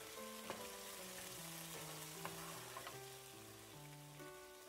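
Oil sizzling steadily in a nonstick frying pan as chopped aromatics are stirred with a wooden spoon, with a few light taps of the spoon against the pan in the first three seconds. Soft background music with slow held notes plays underneath.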